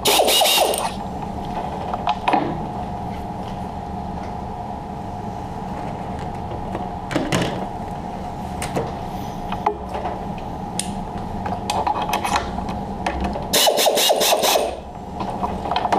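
Tool change on a G0704 CNC mill: metal clicks and clatter as the drawbar at the top of the spindle is worked by hand, a loud run near the start and another near the end, with scattered single clicks between. A steady machine hum runs underneath.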